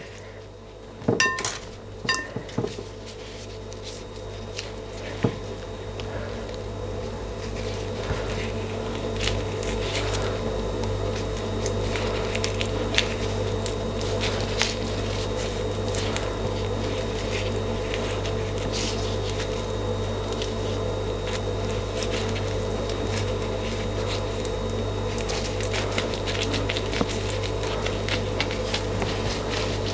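Skewers and beef strips being handled on a plate: scattered light clinks and taps over a steady low hum that grows louder over the first ten seconds or so and then holds.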